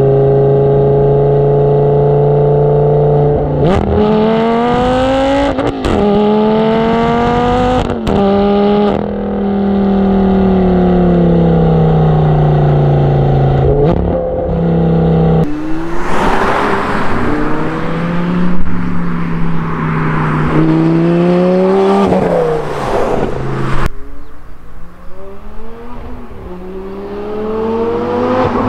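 Lamborghini Gallardo V10 through a hybrid Capristo and IPE exhaust, driven hard. It holds a steady cruise, then accelerates through three quick upshifts, each with a short crack, and then the pitch falls as the driver lifts off. It is heard again, with wind rush, revving up through the gears, and near the end the car pulls hard toward the microphone.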